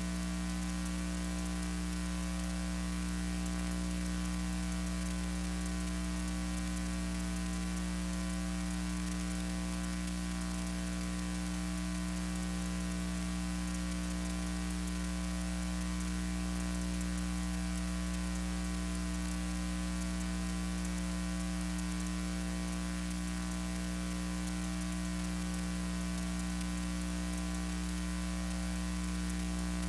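Steady electrical mains hum with a constant hiss, unchanging throughout: the noise of the playback and transfer chain under silent archival film.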